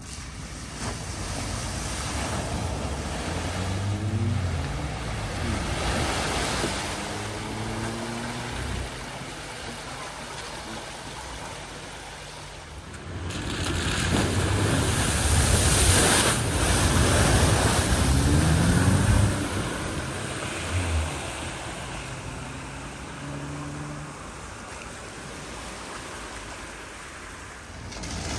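Cars wading through a flooded ford: water rushing and splashing around the wheels, with engines revving in low gear, the note rising several times as they accelerate. About halfway through, the water wash gets louder for several seconds.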